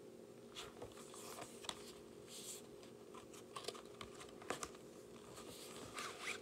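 Faint handling of a Blu-ray's fold-out packaging as it is turned over and unfolded: scattered light rustles and small clicks.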